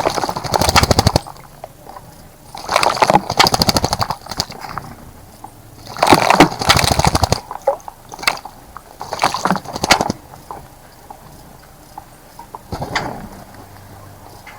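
A bird bathing in a bird bath, splashing water with rapid wing flutters in five bursts, each from half a second to about a second and a half long.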